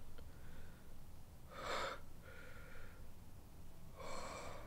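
A wounded man's laboured breathing: two heavy, gasping breaths, about a second and a half in and again near the end.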